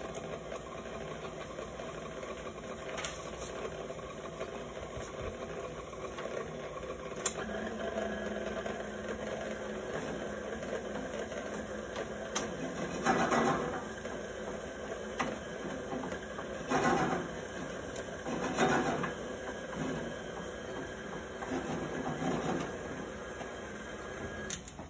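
Electric mixer motor running steadily as it mixes yeast bread dough, with louder swells several times in the second half. It cuts off suddenly near the end.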